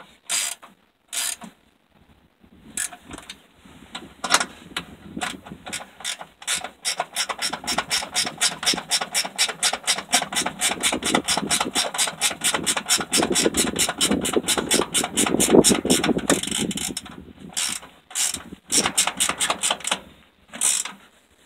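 Hand ratchet wrench clicking rapidly, several clicks a second, as the bolts of a tractor's shift-console cover are run in. The clicking comes in runs with short pauses near the start and several near the end.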